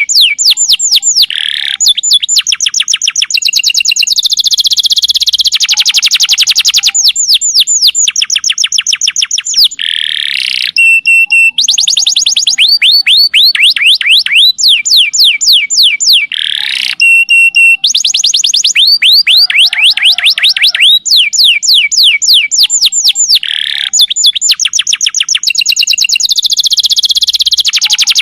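Domestic canary singing a long song of fast trills: rapid runs of chirps, each sweeping down in pitch, repeated many times a second, broken by a few short, steady whistled notes. This is the long rapid-fire style of song played to lure other canaries into singing.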